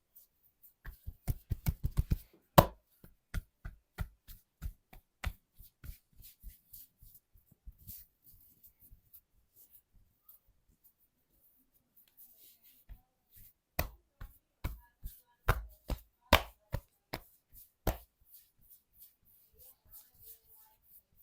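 Percussive hand massage: sharp slaps and chops of hands striking the body. A quick run of about eight strikes a second comes about a second in, then scattered single strikes and a lull of a few seconds, then another run of louder strikes.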